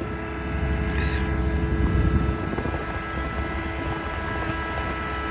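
Diesel engine of a John Deere 316GR skid steer running steadily: a low rumble with a constant whine above it.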